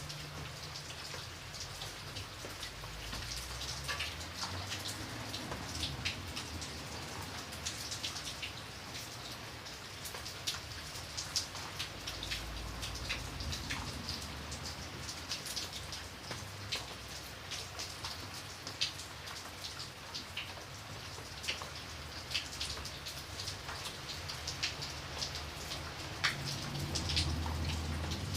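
Rain falling steadily, with many separate drops pattering and ticking on a surface over a soft hiss and a low rumble.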